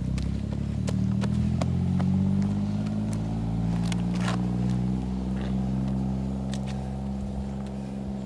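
A motor vehicle's engine running steadily, growing louder over the first two seconds, then slowly fading and dropping slightly in pitch, with a few sharp clicks over it.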